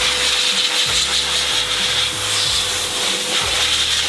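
Blo Air-GT car dryer blowing air through its hose and nozzle onto a wet car grille. It cuts in abruptly at the start and runs as a loud, steady rush of air with a strong high hiss and a thin, steady whine underneath.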